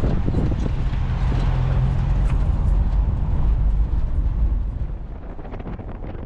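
Driving noise inside a moving Volkswagen Kombi: a low engine and road rumble with wind on the microphone. It drops noticeably quieter about three quarters of the way through.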